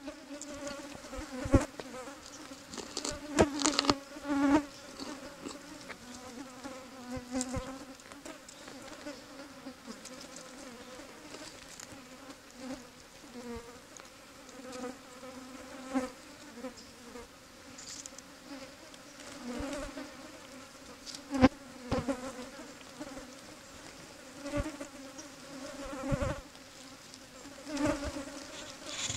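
A flying insect buzzing close by, its hum swelling and fading again and again, with several sharp clicks.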